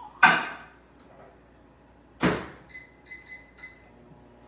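A microwave being loaded and started: a clunk as the ceramic pot goes in, the microwave door shut with a sharp knock about two seconds in, then a quick run of short keypad beeps as the cooking time is set.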